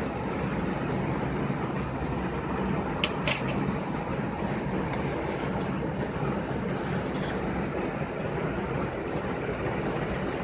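Western Digital hard drive running with a steady whirring hiss, and two sharp clicks in quick succession about three seconds in plus a fainter one a little before six seconds: the clicking of a faulty drive.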